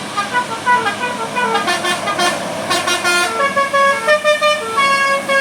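Bus telolet horn of the basuri type playing a quick tune, its notes stepping up and down in pitch, each held about a quarter of a second.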